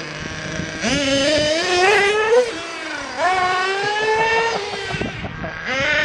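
Small nitro glow engine of a radio-controlled car revving as it is driven. The pitch climbs for about a second and a half, drops, then climbs again more slowly near the middle, with shorter quick blips of throttle near the end.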